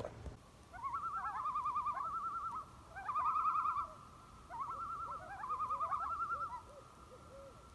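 A group of coyotes howling and yipping: wavering, quavering howls over short rising yips, in several bouts that die away near the end.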